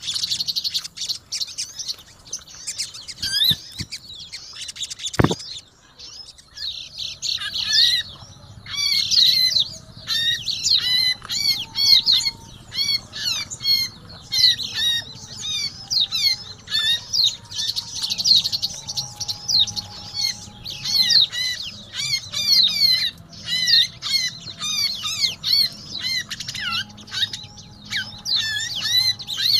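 Sogon and pleci (white-eyes) chattering noisily, with rapid high chirps and calls overlapping almost without pause. There is a single thump about five seconds in.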